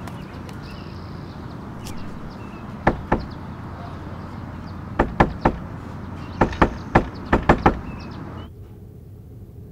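Knocking on a wooden door by a cat's paws: two knocks about three seconds in, then three quick rounds of about three knocks each.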